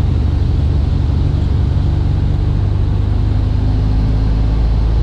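Propeller and fuel-injected four-cylinder Lycoming IO-360 engine of a Mooney M20F, a steady drone heard from inside the cabin on approach. Its pitch settles slightly lower about halfway through.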